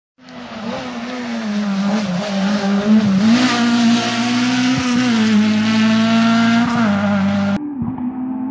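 Rally car engine running hard at high revs as the car passes, a steady tone that dips briefly in pitch a few times. Near the end it cuts off abruptly, leaving a duller steady drone.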